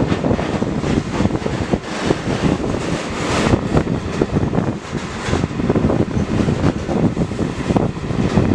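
Steady rumble and clatter of a long iron-ore train's loaded hopper wagons rolling past close alongside on the next track, wheels knocking over the rails.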